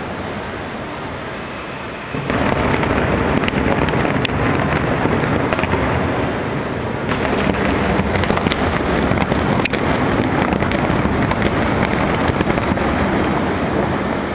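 Fireworks going off: a continuous rumble of bursts that gets louder about two seconds in, with a few sharp cracks.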